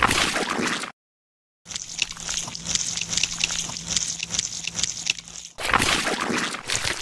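Edited watery sound effects for the muddy pool: a burst of sloshing liquid that cuts off abruptly about a second in. After a short silence comes a longer stretch of trickling water with a faint steady hum under it, then another sloshing burst near the end.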